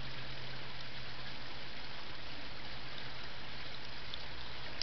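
Steady rushing hiss with a faint low hum beneath it, unchanging throughout.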